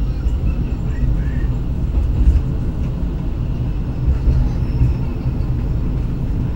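Steady low rumble of the Argo Wilis passenger train running along the rails, heard from inside the carriage.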